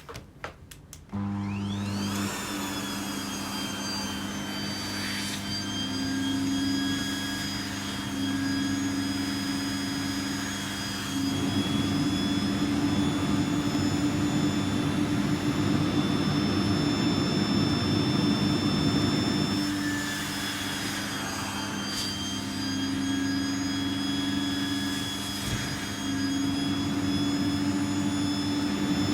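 Vacuum cleaner switched on with a few clicks, its motor whine rising as it spins up, then running steadily, louder and rougher for several seconds in the middle.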